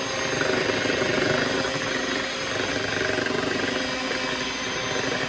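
Electric hand mixer running steadily, its twin beaters whisking banana bread batter in a glass mixing bowl.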